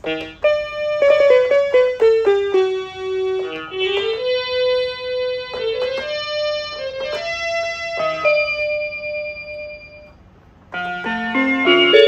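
BigFun BF-630A1 61-key toy keyboard playing a melody one note at a time through its built-in speakers, stepping through its preset tones. It stops briefly about ten seconds in, then picks up again with lower, fuller notes in another tone.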